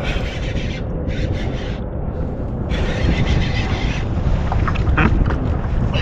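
Wind buffeting the action camera's microphone: a steady low rumble, with gusts of hiss that come and go every second or so.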